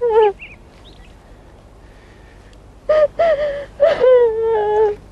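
A young woman crying: a short sob at the start, then after a pause two long, wavering crying wails from about three seconds in.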